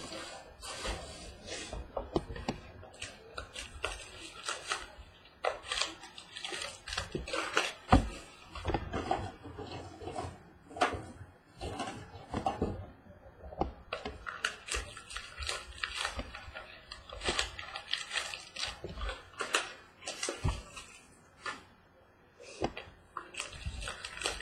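Trading card box and pack packaging being handled and opened: irregular rustling, crinkling and clicking of plastic wrap and cardboard, with a sharper knock about eight seconds in and another about three seconds later.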